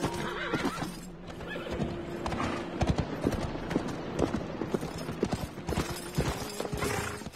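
Horses' hooves clopping irregularly as horses move about, with a faint steady low tone underneath, from a film soundtrack.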